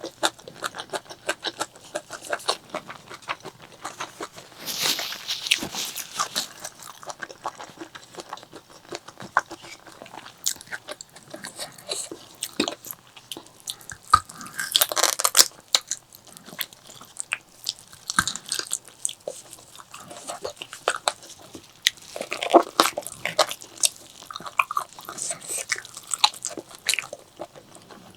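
Close-miked eating sounds of a person chewing and biting food, with a run of irregular crunchy clicks and longer crunching stretches about five seconds in and again around fifteen seconds.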